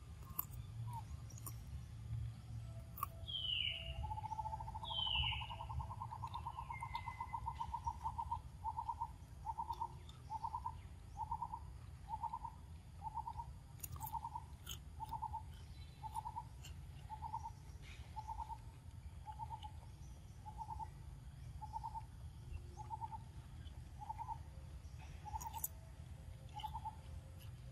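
A bird calling: a fast trill at one pitch starts about four seconds in and slows into a long, regular series of short notes, about one a second. Just before it come two quick higher down-slurred calls.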